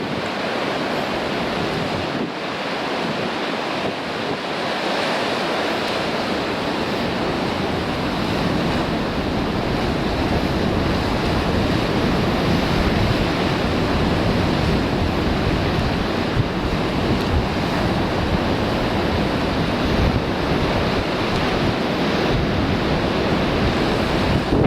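Heavy surf crashing steadily against a rocky shore, with a deep rumble, while strong wind buffets the microphone.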